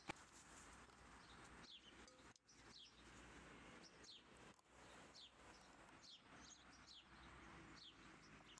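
Faint bird calls: short falling chirps repeated every half second to a second over a low steady hiss, with one sharp click just after the start.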